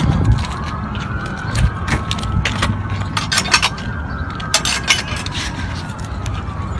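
Wailing emergency siren, its pitch rising and falling slowly over several seconds, with scattered sharp clicks and knocks from the phone being handled.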